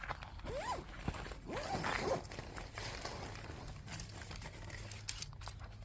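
A zipper drawn in two short strokes within the first couple of seconds, the second louder, then quieter handling noise with a few light clicks.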